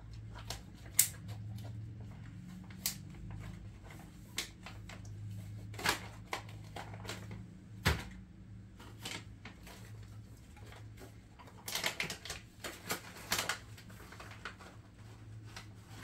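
Jindo mix dog crunching a hard treat: irregular sharp crunches and clicks, with a quick flurry about three quarters of the way through, over a low steady hum.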